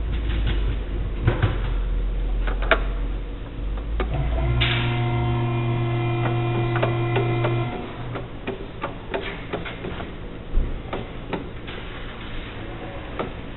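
A steady low hum, then a motor running at a steady pitch for about three seconds from around the middle, with scattered sharp clicks and knocks throughout.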